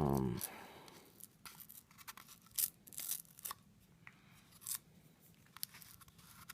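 Faint, scattered clicks, crinkles and small snaps of iPod parts being handled and pulled apart by hand, with a few sharper clicks in the middle.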